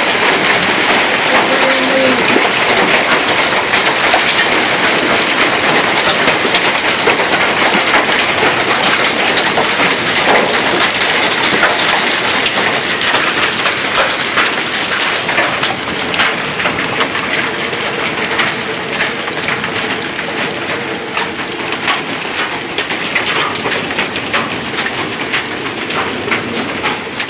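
Hail mixed with heavy rain pelting a pickup truck, roofs and pavement: a dense, steady hiss full of sharp ticks of small hailstones striking, easing a little past halfway.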